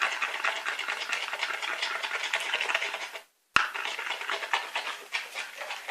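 Slime mixture of glue being stirred in a container, a quick, steady run of scraping and clicking. It cuts out briefly with a sharp click about three and a half seconds in, then carries on.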